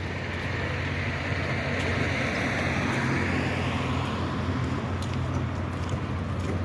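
Road traffic: a steady engine hum, with a vehicle's tyre and engine noise swelling as it passes about two to three seconds in and then fading.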